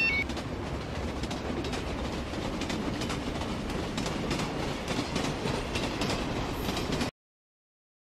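A freight train hauled by a diesel locomotive passes by: a steady rumble with the clicking of wheels over rail joints. It cuts off suddenly about seven seconds in.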